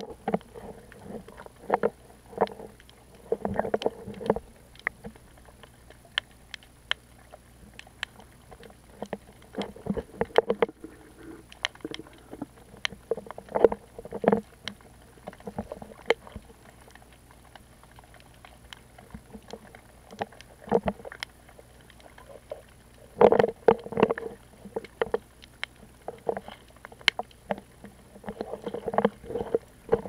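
Muffled water sounds picked up underwater through a waterproof camera housing: irregular swishes and surges of water stirred by swimmers' hands and bodies, with scattered sharp clicks.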